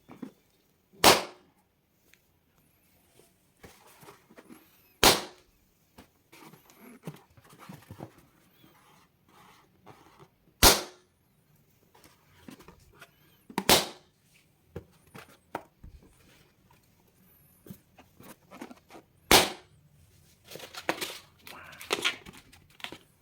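Balloons popping: five sharp, loud pops a few seconds apart, with quieter scattered rustling and handling noises between them and a flurry of small sounds near the end.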